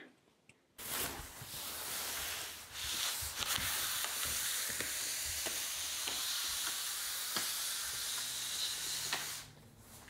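Steady hissing noise with scattered faint clicks, starting about a second in and stopping shortly before the end.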